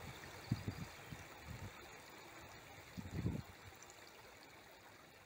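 Faint hissing room tone with a few soft, low bumps, once about half a second in and a cluster around three seconds in.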